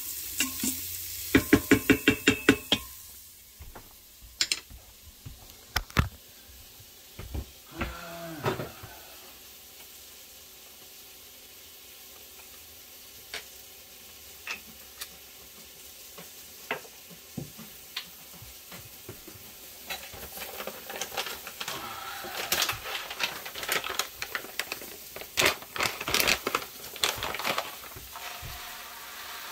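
Arborio rice and mushrooms sizzling in butter in an Instant Pot's stainless steel inner pot on the sauté setting, stirred and scraped with a wooden spoon. A quick run of sharp, ringing knocks sounds near the start; the sizzle is quieter with scattered knocks through the middle, and the stirring gets busier and louder from about twenty seconds in.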